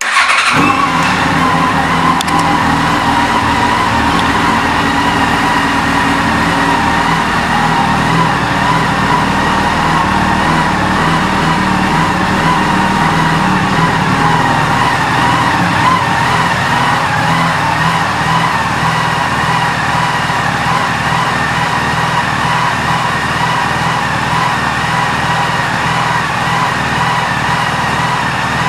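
2007 Yamaha FJR1300A's inline-four engine, fitted with an aftermarket exhaust, starts with a brief flare and settles into a steady idle.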